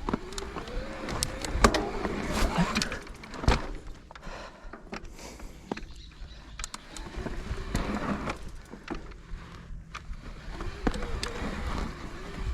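Shimano EP8 e-bike mid-drive motor whining under load on a steep climb, its pitch wavering up and down with the pedalling and fading in and out. Sharp clicks and knocks from the bike rattling over rough ground run throughout.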